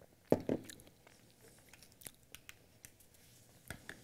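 Two knocks of something set down on a hard surface, about a third and a half second in, then scattered light clicks and handling noises in a small room.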